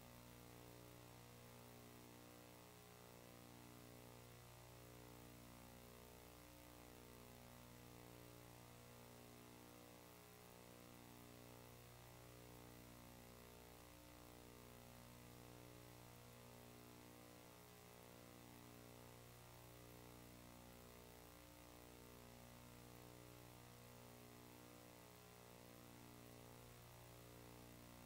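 Near silence: a faint, steady electrical mains hum that slowly swells and fades every seven seconds or so.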